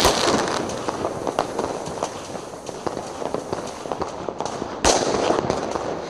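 Fireworks and firecrackers going off: a dense run of sharp bangs over steady crackling, with loud bursts right at the start and again about five seconds in.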